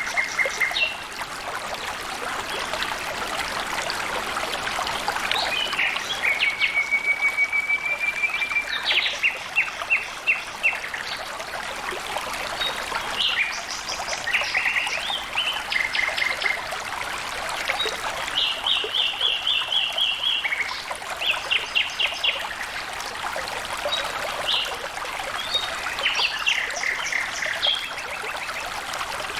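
Water trickling and flowing steadily, with birds calling over it in runs of fast, evenly spaced chirps and trills, one trill held for about two seconds around seven seconds in.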